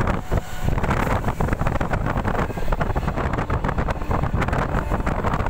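Train running at speed, heard from a window seat: a steady rumble of the wheels on the track, with wind buffeting the microphone.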